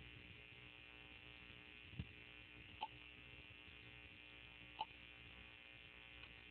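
A short ping-pong ball 'pop' sound effect, played back from a computer, sounding twice about two seconds apart and once more faintly near the end, over a low steady hum. A low thump comes just before the first pop.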